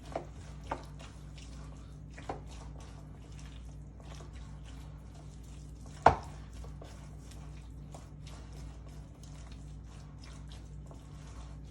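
A utensil stirring and folding chunky guacamole (mashed avocado, tomato, onion, jalapeño and cilantro) in a bowl: many small wet clicks and scrapes, with a few sharper knocks against the bowl and the loudest knock about six seconds in, over a steady low hum.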